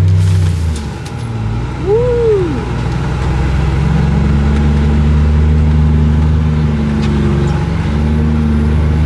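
Utility vehicle (Gator) engine running steadily while driving, its note dipping about a second in and then holding. A brief rising-then-falling tone sounds about two seconds in.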